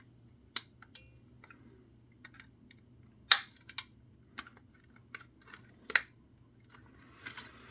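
Scattered small clicks and taps of a tool working at a plastic electronics housing, with two sharper clicks, one about a third of the way in and one about three quarters through.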